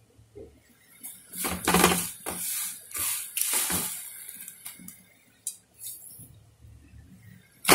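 Clinking and scraping of a metal pan and utensils, with rustling as dry vermicelli is added to water in the pan by the handful. The sounds come as a cluster of clatters in the first half, then a few lighter knocks.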